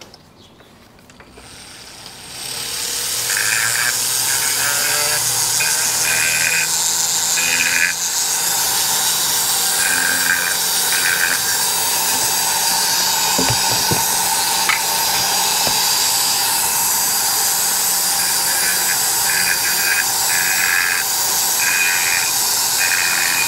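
A flexible-shaft rotary tool spins up about two seconds in and runs at high speed with a steady high whir, its small abrasive point grinding on and off against the aluminium edges of a two-stroke motorcycle cylinder's bore and ports as they are chamfered and deburred.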